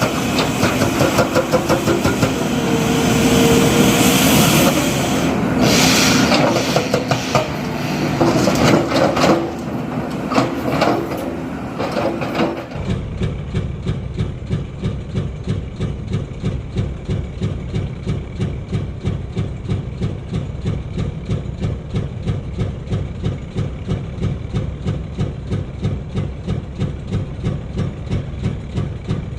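Heavy diesel engine of construction machinery running under load for about twelve seconds. It then cuts abruptly to a diesel engine idling with a steady, even chug of a few pulses a second.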